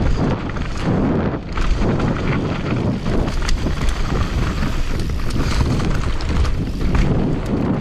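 Commencal downhill mountain bike descending a rough trail at speed: wind buffeting the action camera's microphone over a steady rumble, with many quick clicks and knocks from the tyres, chain and frame rattling over rocks and roots.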